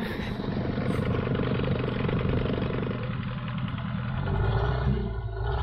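Outboard motor of an inflatable fishing boat running close by, with a fast, even firing rhythm; its note drops lower about four seconds in.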